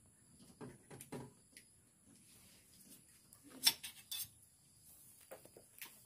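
Scattered light clicks and scrapes of hands working electrical wires and plastic parts at the back of a Sharp washing machine, with two sharper clicks a little past the middle.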